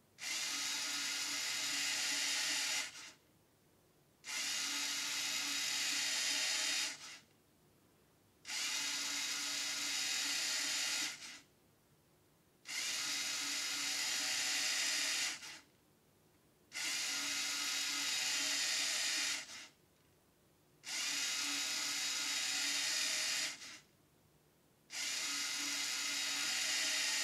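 LEGO NXT motor driving the display's geared camshafts, a whir of plastic gears and cams, running in seven runs of about three seconds each with short silent pauses between. Each run steps the mechanical 11-segment display on to its next number.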